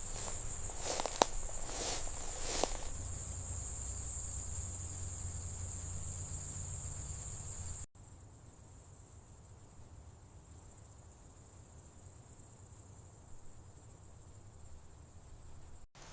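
Insects, like crickets, chirping in a steady high drone, with a few soft knocks in the first three seconds. About eight seconds in, the sound cuts abruptly to a quieter, slightly higher insect drone.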